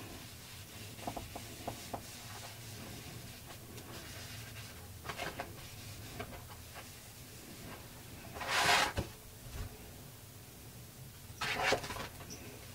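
A moist baby wipe rubbed over a painted paper journal page, spreading and blending the paint. It gives a few short scratchy strokes, the loudest just past halfway and another near the end, over a faint low hum.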